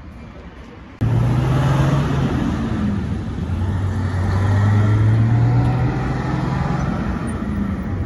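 Road traffic close by: a military truck's engine running steadily as it drives past, together with a pickup. The sound starts abruptly about a second in and is loudest around the middle.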